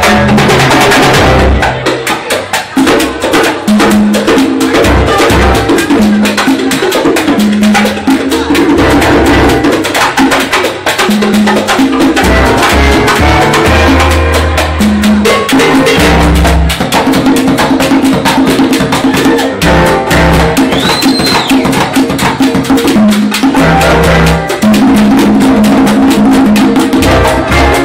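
A live charanga band playing an up-tempo Latin jazz number: congas and timbales drive a dense rhythm under bowed violins, over a walking low bass line.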